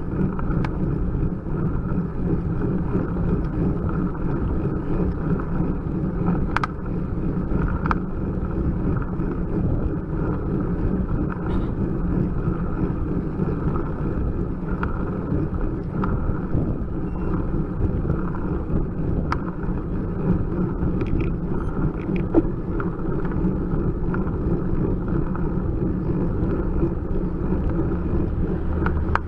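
Steady wind and road rumble picked up by a bicycle-mounted camera's microphone as a road bike climbs slowly, with a few scattered sharp clicks.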